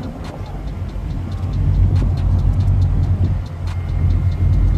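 Deep exhaust rumble of Dodge muscle cars idling, growing louder about two seconds in.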